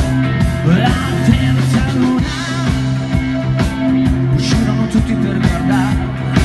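Live rock band playing an instrumental passage: steady bass notes and a drum-kit beat, with a lead line sliding and wavering in pitch over them.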